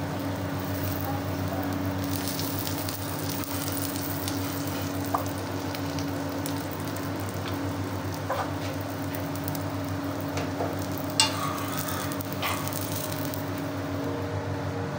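Egg omelette sizzling in oil on a flat iron tawa, a steady frying hiss over a low hum. A few short scrapes and taps of a metal spatula come as the omelette is folded, the sharpest about two-thirds of the way in.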